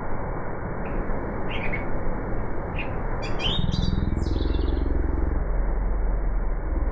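Bird chirps: a few single chirps, then a quick run of them about three seconds in, ending with a falling call. Under them runs a steady low rumbling noise.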